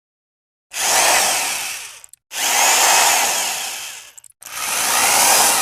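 A power tool run in three bursts of one and a half to two seconds each, each starting abruptly and tailing off, with short gaps between.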